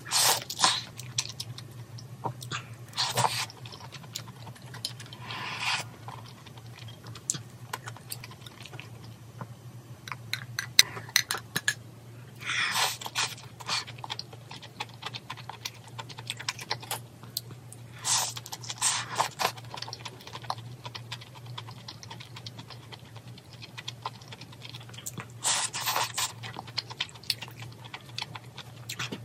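Close-miked eating of malatang noodles and meat: steady chewing with many small wet clicks, with about six louder short bursts at irregular spacing.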